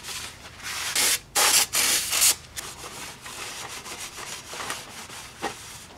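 Shop towel scrubbing the inside of a metal automatic transmission oil pan: a dry, rough rubbing, with the hardest strokes between about one and two seconds in and softer wiping after.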